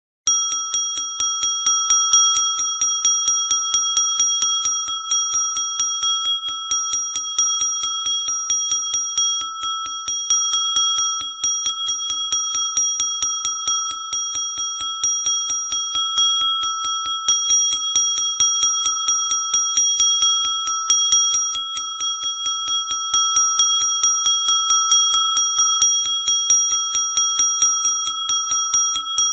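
Small brass bell rung rapidly and without pause, about four to five strikes a second, its clear high tone ringing on between strikes.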